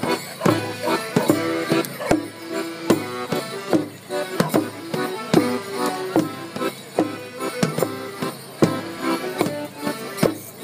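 Folk band playing a lively morris dance tune, with sharp wooden knocks in time with the beat from the dancers' sticks striking together.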